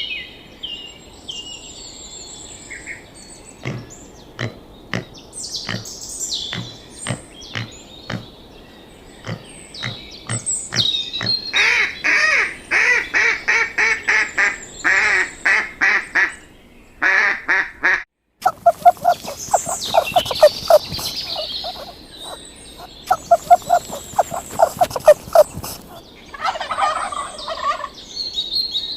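Birds calling: scattered chirps and clicks, then rapid runs of pulsed calls. After a sudden break about 18 seconds in, faster, lower rattling calls follow in quick series.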